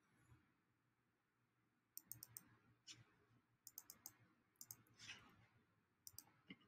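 Faint computer mouse clicks in small quick clusters, like double clicks, starting about two seconds in and recurring several times.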